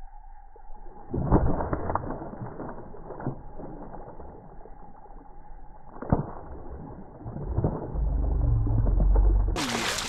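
Muffled knocks and bumps of rod and tackle on a boat while a hooked bass is fought and landed, with a steady tone in the first second and a loud low rumble near the end.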